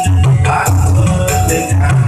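Upbeat music with a repeating bass line and steady percussion, including a bright shaker-like rattle on the beat.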